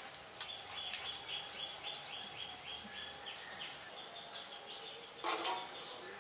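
Nightingale song: a run of quick, evenly repeated falling chirps, about four a second, then trills and varied notes, with a brief louder rustle about five seconds in.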